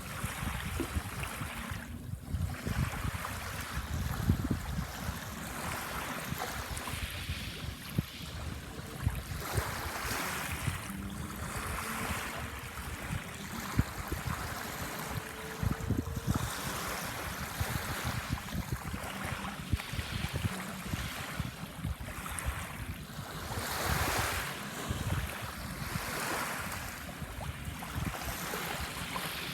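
Sea waves washing onto a sandbar, the surf swelling and ebbing every few seconds, with wind buffeting the microphone as a low rumble.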